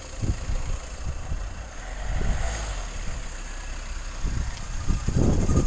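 Mercedes Sprinter van's engine running with the driveline turning in gear, a steady low rumble with a faint high steady whine, growing louder about five seconds in.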